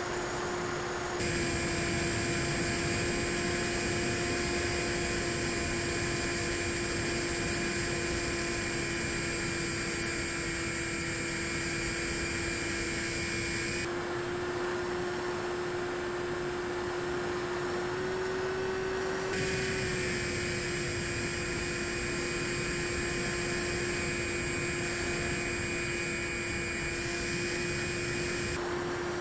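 Bixler 3 model plane's brushless motor and propeller running steadily in flight: a constant hum with higher whining tones that cut out for several seconds midway and come back, with a slight rise in pitch just before they return.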